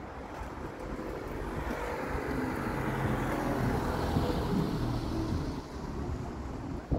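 A road vehicle driving past: tyre and engine noise swelling over about three seconds, then fading away, with wind buffeting the microphone.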